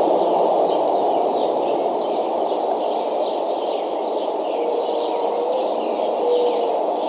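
Birds chirping outdoors, a run of short downward-slurred high notes repeating about twice a second, over a steady rushing background noise. A few faint short steady tones come in during the second half.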